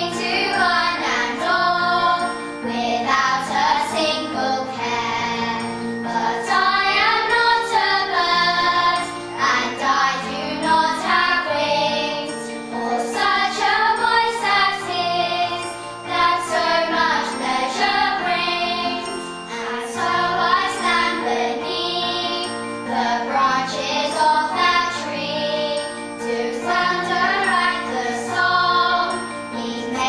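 A group of children singing a gentle song together in unison, over a steady instrumental accompaniment.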